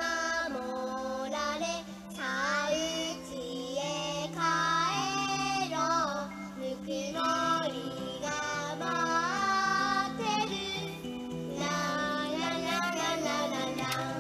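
A song: a high voice sings a melody in phrases over steady instrumental accompaniment.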